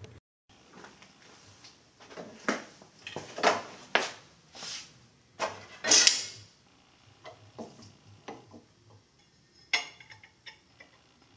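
Metal clanks and clinks as a steel motorcycle muffler bracket and small metal parts are knocked and set against a cast-iron bench vise: about a dozen short knocks, the loudest about six seconds in, fainter ones after.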